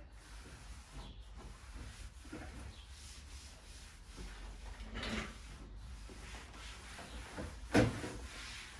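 Soft rubbing and scraping against the surface of a newly hung whiteboard, with a stronger swell about five seconds in and a single sharp knock near the end.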